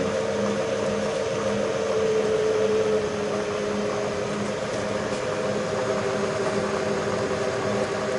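Bridgeport J-head vertical mill's spindle running on its variable-speed belt drive, its steady whine sliding down in pitch about three to four seconds in as the speed is turned down toward low speed. A low throb repeats about twice a second underneath.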